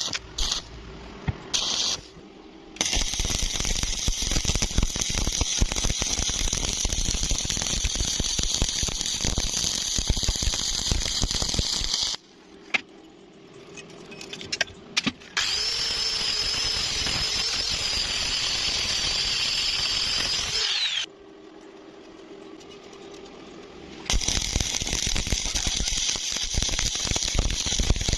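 Electric arc welding at 80 amps: the arc crackles and sizzles in runs of several seconds, broken by short pauses. In the middle stretch the sound turns to a steadier hiss with a thin high whine that drops away as it stops.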